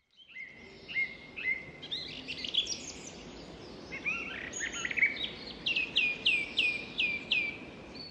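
Songbirds singing: a string of varied chirps and short phrases, then near the end a run of about six quick notes, each sweeping downward, over a faint outdoor hiss.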